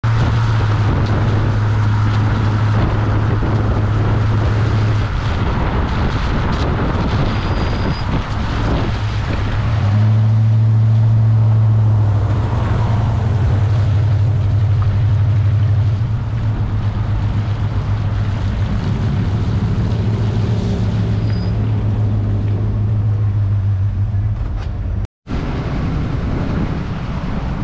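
Pickup truck driving on pavement: a steady low drone of tyres and engine with wind rushing over an outside-mounted camera, broken by a brief dropout near the end.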